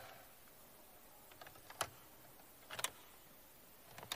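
Low, steady room tone with a few faint, sharp clicks or taps spaced about a second apart.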